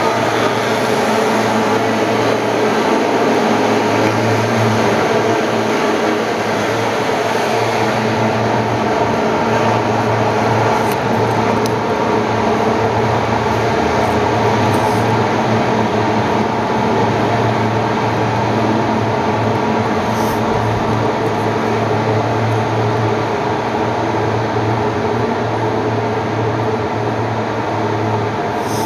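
Pest-control fogging machine running with a loud, steady, unbroken drone while it fills the corridor with insecticide fog.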